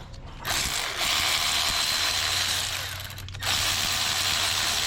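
A power ratchet running in two long bursts with a brief pause between, loosening a fastener.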